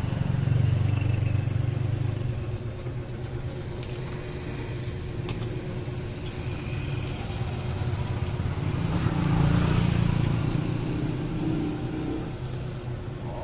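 Street traffic: motor vehicles passing close by, their engine rumble swelling and fading, once at the start and again, loudest, about nine seconds in.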